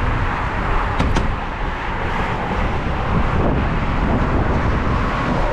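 Steady noise of highway traffic on the Florida Turnpike below a trail bridge, with two short clicks about a second in.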